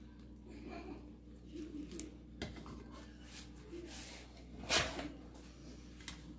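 Quiet handling noises of a plastic piping bag of cream-cheese frosting being squeezed and lifted: soft rustles, a light tap about two and a half seconds in, and a louder brief rustle a little before five seconds.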